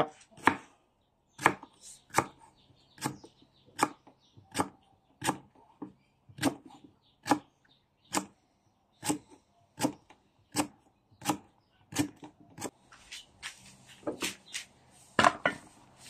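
Large kitchen knife slicing lemongrass stalks into thin rings on a thick round wooden chopping board. The blade strikes the board in a steady series of sharp knocks, about one every three-quarters of a second.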